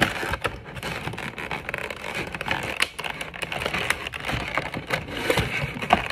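Cardboard and plastic packaging of a Pokémon card collection box being handled by hand: continuous rustling and scraping with many small clicks and taps.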